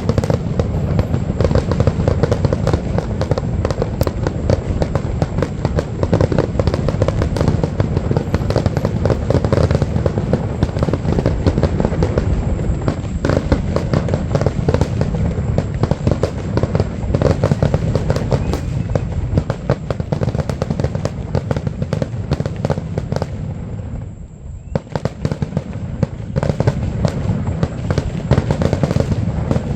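Fireworks grand finale: a dense, continuous barrage of booming aerial shells and crackling, with barely a break, a short lull about two-thirds of the way through.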